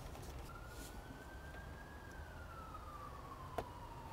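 A faint siren wailing: one tone slowly rising, then falling, then starting to rise again. A single sharp click comes about three and a half seconds in.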